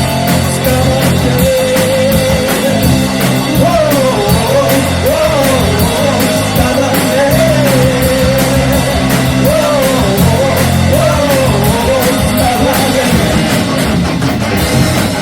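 Rock band playing live and loudly: drum kit, guitars and a lead melody line that slides up and down, in a punk-rock style.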